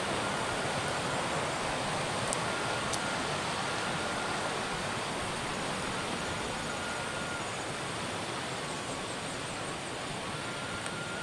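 Steady rushing outdoor background noise, with a faint thin whistling note, each a second or two long, coming and going several times.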